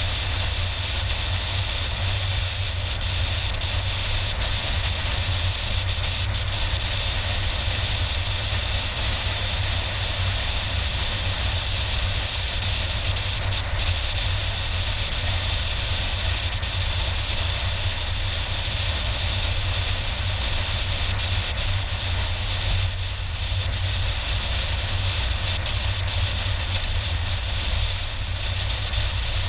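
Steady road noise of a car driving at speed, a low drone of tyres and engine heard from inside the cabin, unchanging throughout.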